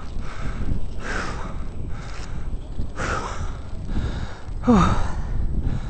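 A man gasping hard for breath close to the microphone: a few heavy breaths about two seconds apart, the last with a falling groan. He is winded from exertion at high altitude.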